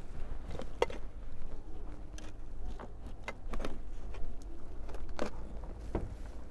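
Hand trowel scooping and tipping soil into a planting hole, a scattered run of short scrapes and soft knocks, over a low steady rumble.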